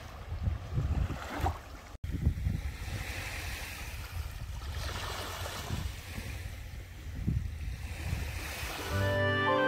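Small waves of the Baltic Sea washing and lapping onto a sandy beach in slow swells, with wind gusting on the microphone. Music comes in near the end.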